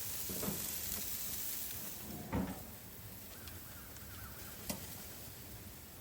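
Steak and chicken sizzling on a barbecue grill, a steady hiss. About two and a half seconds in there is a knock and the sizzle turns much quieter; a sharp click follows near the end.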